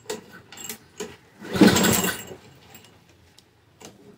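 A Toro self-propelled lawnmower pull-started: one hard pull about one and a half seconds in, the engine turning over for under a second without catching, with a few small clicks before it. The owner suspects the engine is flooded.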